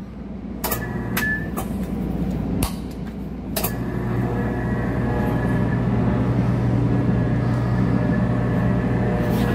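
A Patterson-Kelley 4-quart V-blender's electric drive starting up and running with a steady hum as the V-shell rotates. A few sharp clicks come in the first four seconds, the last as the start button is pressed. After that the hum grows louder and settles.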